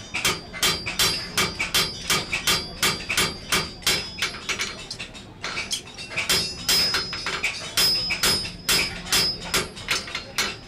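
Blacksmith's hand hammer striking hot iron on an anvil, about three blows a second, each with a bright anvil ring, with a brief pause about five seconds in. The iron is being forged into the cusp, or finial, of a thumb latch.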